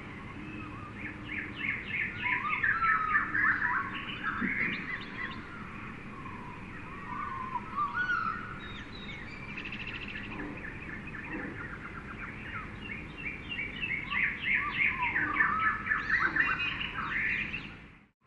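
Jungle ambience: several birds chirping and trilling over a steady background hiss, with two spells of dense, rapid chirping. The sound drops out briefly right at the end.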